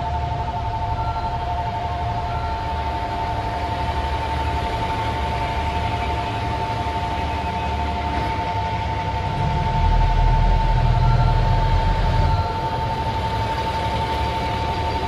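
A KiHa 85 series diesel railcar train pulling out, its diesel engines and wheels giving a low rumble that grows louder for a couple of seconds about ten seconds in as a car passes close. A steady two-note high tone sounds throughout.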